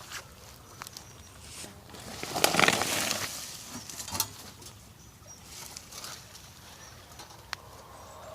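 Chickens moving about and pecking, with scattered light taps, faint high chirps and a brief rustling flurry about two and a half seconds in.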